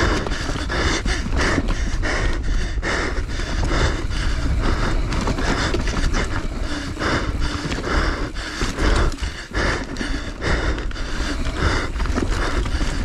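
An enduro rider's heavy, rapid breathing inside the helmet, about two breaths a second, over the steady low rumble of the dirt bike and wind while riding the course.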